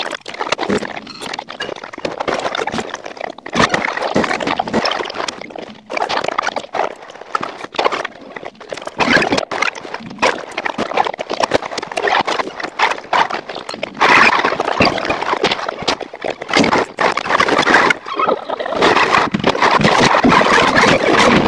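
Film soundtrack of a ship-sinking scene, heard as loud, noisy sound effects spliced in quick cuts, with many abrupt breaks and jumps in level; it is loudest about two-thirds through and near the end.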